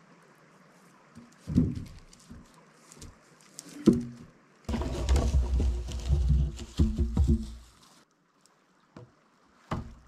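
Rustling and footfalls in dry grass and forest litter with a few thuds, then a louder stretch of rustling and low rumbling as material is handled at a log roof frame, and one more thud near the end.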